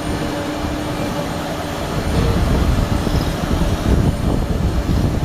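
Milling machine running: a low mechanical rumble with a faint steady hum that fades, growing louder about two seconds in.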